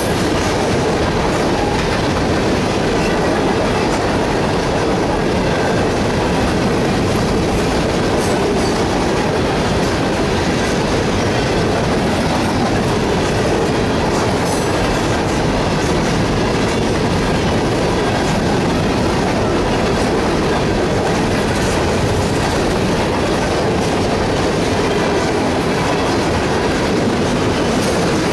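Freight train of tank cars and covered hoppers rolling past close by at a grade crossing: a steady, loud rolling noise of steel wheels on rail, with occasional clicks from the wheels.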